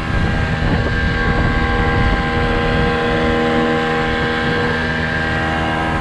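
Tohatsu 9.8 hp short-shaft outboard motor running steadily at cruising speed, pushing a small inflatable dinghy along.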